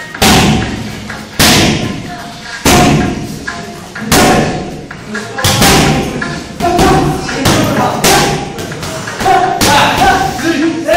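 Boxing gloves smacking hand-held punching pads in loud, sharp hits, at first single punches about a second and a half apart, then quicker combinations. Voices are heard underneath.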